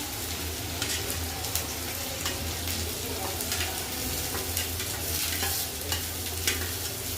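Finely chopped vegetables stir-frying in hot oil in a pan, sizzling steadily while a spatula scrapes and clicks against the pan now and then.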